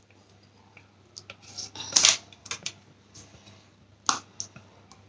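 Thick wet banana batter being poured from one bowl into a glass bowl of whole wheat flour: scattered soft plops and light clicks, the loudest about two seconds in and again about four seconds in.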